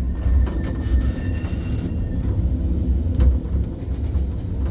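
Museum tram running on rails: a steady low rumble with scattered clicks and knocks, and a faint thin whine during the first two seconds.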